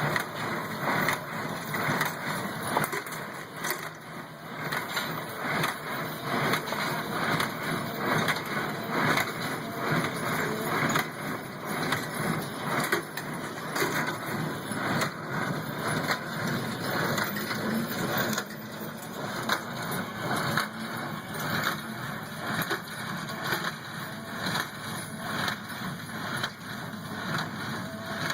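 Small square baler powered through a horse-drawn forecart's ground-driven PTO, running with a steady clatter of repeated knocks from its plunger and working parts as it packs hay.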